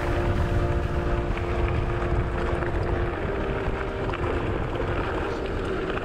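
Gravel bike rolling along a gravel track: wind buffeting the camera microphone and the tyres crunching and rattling over loose gravel. A steady tone sits under it in the first half and fades out about halfway through.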